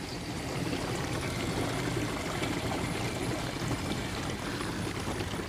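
Gasoline pouring in a steady stream from a 5-gallon plastic gas can's spout into a second plastic fuel can, a slow pour.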